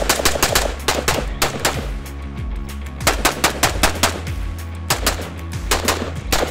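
PSA JAKL 5.56 rifle, a long-stroke gas piston carbine on an AR-15 lower, fired in several quick strings of shots with short pauses between them, over background music.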